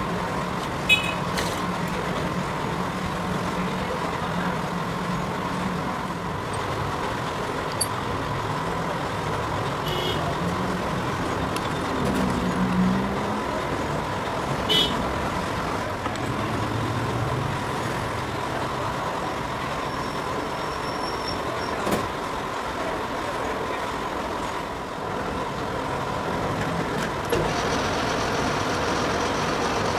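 Steady mechanical drone of a metal lathe and shop machinery with a faint steady whine, broken by a few sharp metallic clinks while the lathe's tool post is set. Near the end the lathe spins with the cast iron blank in its chuck and the sound gets a little louder.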